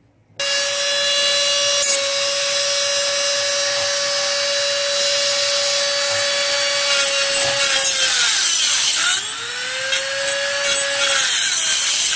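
Dremel rotary tool with a cutoff wheel, switched on about half a second in and running with a steady high whine. From about halfway the pitch repeatedly sags and recovers as the wheel is pressed into a steel bolt to cut it out.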